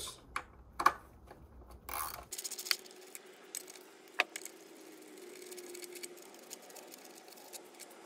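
Sharp metallic clicks and light jingling of a ratchet with an Allen bit and loose steel bolts as the 5 mm Allen bolts of a plastic engine cover are undone. The clicks are scattered, with the loudest about a second in and another sharp one about four seconds in.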